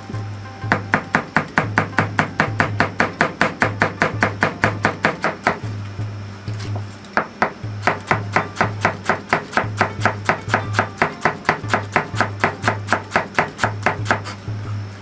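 Kitchen knife shredding cabbage into fine strips on a plastic cutting board: quick, even chops of about six a second, with two short pauses around the middle.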